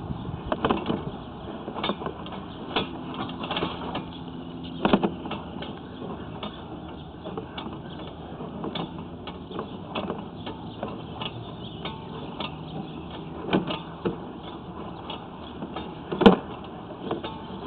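Sewer inspection camera and its push cable being fed down a cast iron vent and sewer line: irregular knocks and rattles, the loudest about five seconds in and again near the end.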